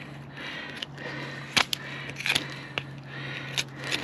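Knife cutting at a wild hog's hip joint to separate the hind quarter: quiet cutting and handling with four sharp clicks in the second half, over a steady low hum.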